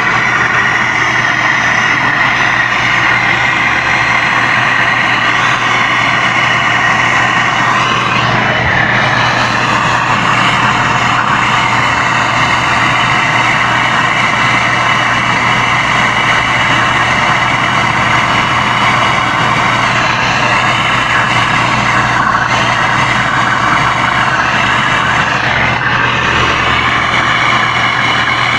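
Handheld gas torch flame hissing steadily while brazing copper refrigerant pipe joints, with a steady low hum underneath.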